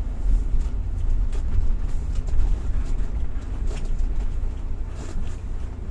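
Steady low rumble of a taxi's engine and road noise heard from inside the cabin while it drives, with a few faint clicks.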